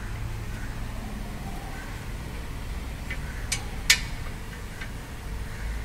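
Low steady hum with three or four sharp metal clicks a little past halfway, the third the loudest, as hand tools are worked on the car's underside during gearbox removal.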